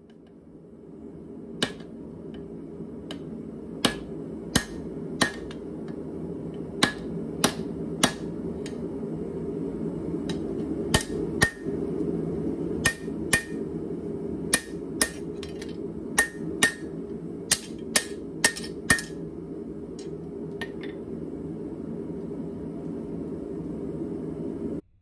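Hand hammer forging red-hot leaf-spring steel on an anvil: about two dozen irregular blows in short runs, each with a brief metallic ring. Under them runs a steady low rushing noise that slowly grows louder. The blows stop a few seconds before the end.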